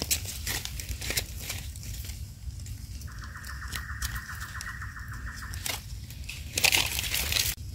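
Small clicks and scrapes of a knife blade and fingers working dirt off the stem of a freshly picked red mushroom in dry leaf litter. A high, finely pulsing buzz runs for about three seconds in the middle, and a loud rustle comes near the end.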